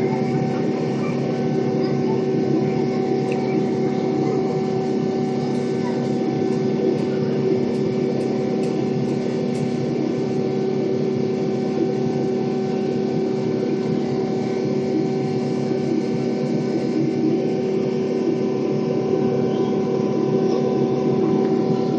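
Boeing 777-300's jet engines heard inside the cabin beside the engine during the climb after takeoff: a loud, steady hum with several steady tones over a rushing noise.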